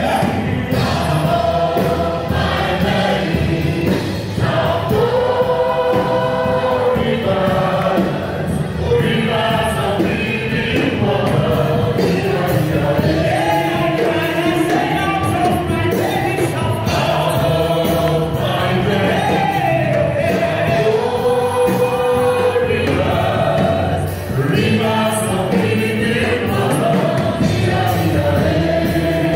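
A congregation singing a worship song together, many voices at once, without a pause.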